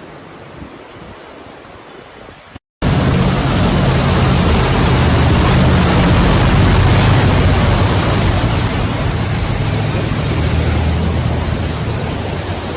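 Faint rushing noise, then, after an abrupt cut about three seconds in, loud steady rushing water with a vehicle engine droning low underneath.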